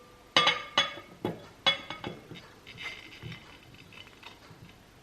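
Cubed butter being tipped into a glass mixing bowl: five sharp knocks with a short ring on the glass in quick succession, then a few softer clinks.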